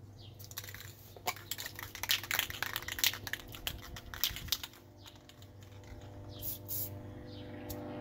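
Metal spray paint cans being handled and rattled: a quick, uneven run of light clicks and rattles for about four seconds, then a few scattered clicks near the end.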